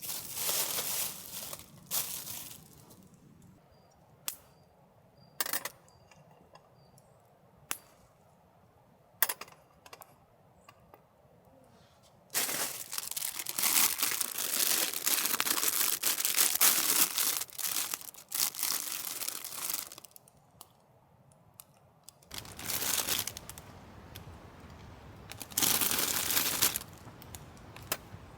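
Rustling and crinkling of handled material in irregular bursts, one long stretch of it about halfway through, with a few short sharp clicks and knocks in the quieter gaps.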